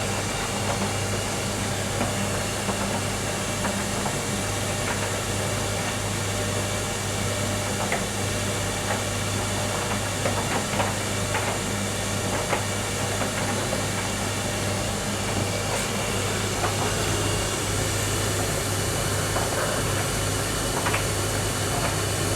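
Bosch WTN85280 condenser tumble dryer running with a load of towels: a steady low hum and rush of air from the fan and turning drum, with a few faint ticks now and then.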